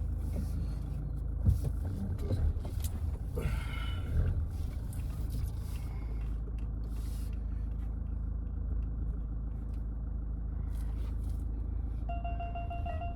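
Steady low rumble of a Mahindra Scorpio-N heard from inside the cabin while driving, with a few knocks in the first few seconds. A steady high tone starts near the end.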